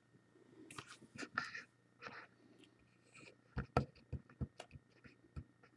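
Faint rustling and light taps, then a quick run of small sharp clicks about halfway through.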